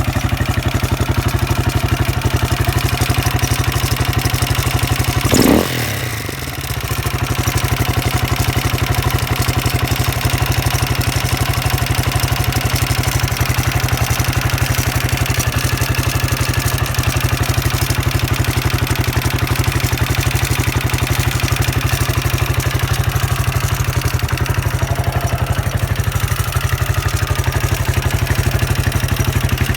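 Husqvarna SM 610's single-cylinder four-stroke engine, on a Keihin FCR 41 carburettor, idling steadily with a clattering note. One short throttle blip about five and a half seconds in, then it drops back to idle. The owner finds this engine noise odd.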